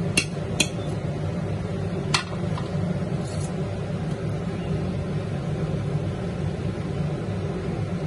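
A few sharp clinks of a metal spoon against an aluminium cooking pot, three within the first two seconds or so, over a steady low hum in a kitchen.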